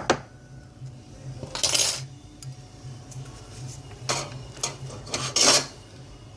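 Metal repair tools clinking and scraping against metal in a few short bursts: a sharp click at the start, a scrape near two seconds in, and several more between four and five and a half seconds in, over a low steady hum.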